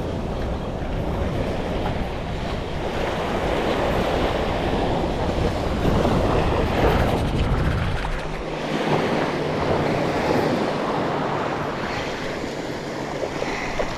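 Surf washing onto the beach, with wind buffeting the microphone; the wind rumble eases about eight seconds in.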